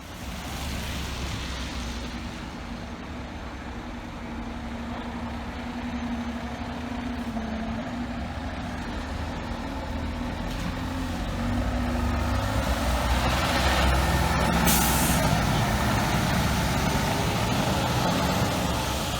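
Fire truck's diesel engine running close by, growing louder in the second half. A short sharp hiss of air brakes comes about fifteen seconds in.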